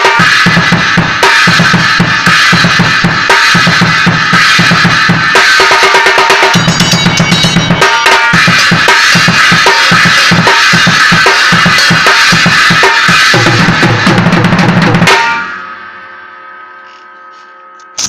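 Drum kit played hard and fast, with bass drum, snare and cymbals, stopping abruptly about fifteen seconds in and leaving a ringing tail that fades away. A short click comes at the very end.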